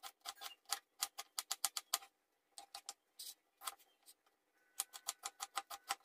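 Kitchen knife chopping an onion on a wooden cutting board: quick, even knocks of the blade on the wood, about seven a second, slowing to a few scattered strokes in the middle before picking up again.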